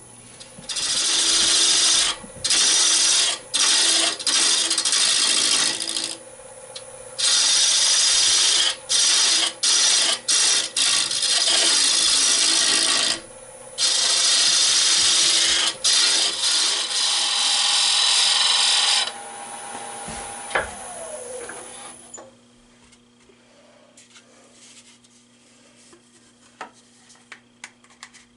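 A turning tool cutting a small East Indian rosewood blank spinning on a wood lathe, in repeated noisy passes with short breaks as the tool comes off the wood. About nineteen seconds in the cutting stops and the lathe winds down with a falling tone, leaving only faint clicks.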